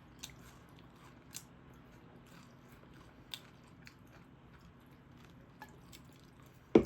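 Scattered small crunches and clicks of someone eating snacks close to the microphone, with two sharp, much louder knocks right at the end.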